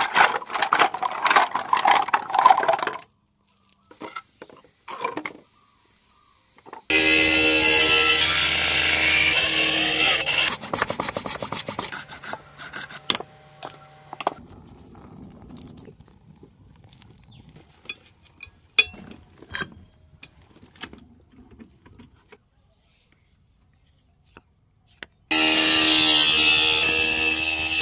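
Horn being worked by hand and machine. It opens with a paper sack rustling. Then an electric motor with a grinding disc runs loudly and steadily for a few seconds and drops to a lower hum. Quieter scraping and tapping of hand tools follow, and near the end the grinding motor runs again.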